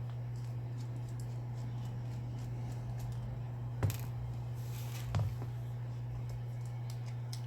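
A steady low electrical hum, with faint ticks and two small sharp clicks about four and five seconds in, and a brief rustle between them: the handling of small hand tools and RC truck wheel parts.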